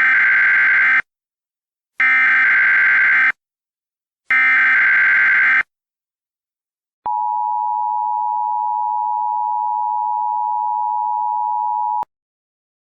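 Emergency Alert System SAME header: three short bursts of buzzing digital data tones, about two seconds apart. They are followed by the EAS two-tone attention signal (853 and 960 Hz together), held steady for about five seconds and cutting off sharply. Together they signal the start of a new emergency alert broadcast.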